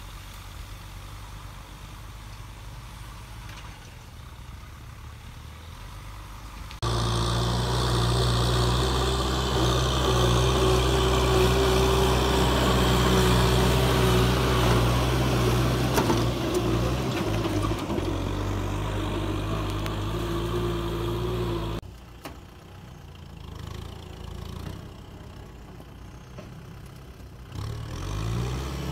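Kubota tractor's diesel engine running, a steady drone that cuts abruptly to a much louder, closer sound about 7 s in, with a steady whine over it, then drops back quieter about 22 s in. Near the end the engine's pitch rises as it revs up.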